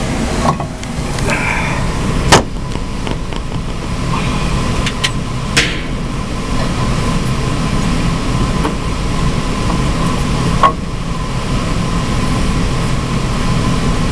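Steady drone of a Carrier water source heat pump running, with a faint steady tone, broken by several sharp knocks and clunks of someone climbing up among the ceiling beams; the loudest knock comes about two seconds in.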